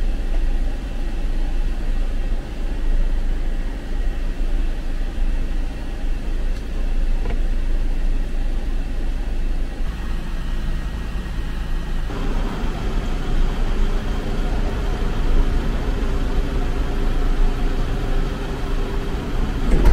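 Steady low rumble of a passenger van's engine running while parked. About twelve seconds in the sound grows fuller and brighter.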